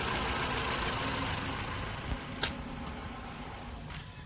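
Ford Fusion's Duratorq diesel engine idling just after being cranked and started, growing quieter in the second half. A single sharp click about two and a half seconds in.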